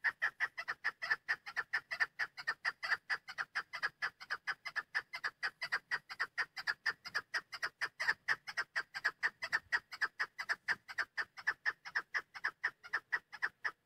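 Female chukar partridge calling in a fast, even series of short clucking notes, about five a second, that stops abruptly near the end.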